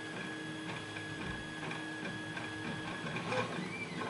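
A lock pick working the pins of the Keath Dean #1 lock under tension: faint, irregular light metallic clicks and scrapes, with one slightly louder tick near the end.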